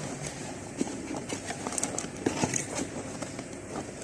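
Scattered light clicks and knocks of a car alarm kit's box and parts being handled as it is unpacked.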